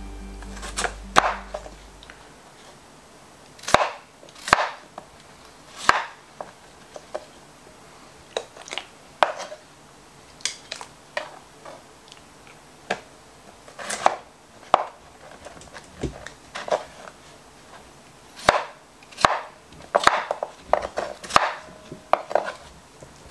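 Chef's knife chopping peeled raw potatoes on a wooden cutting board, an irregular series of sharp knocks as the blade strikes the board.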